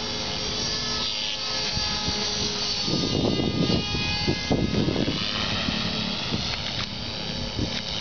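ALZRC Devil 480 HV electric RC helicopter flying: a steady whine from its motor and rotor, its pitch gliding up and down as it manoeuvres. A rough rushing noise swells for a couple of seconds in the middle.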